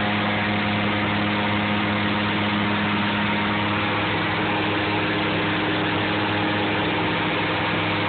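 Cockpit sound of a SeaRey amphibian's Rotax 914 turbocharged four-cylinder engine and propeller in flight just after take-off: a steady, loud drone with a low hum that holds constant throughout.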